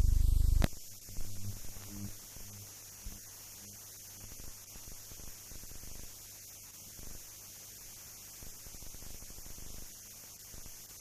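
Loud low electrical hum that cuts off with a sharp click less than a second in, leaving a faint steady hiss with a weaker hum and scattered crackles: soundtrack noise, with no aircraft sound heard.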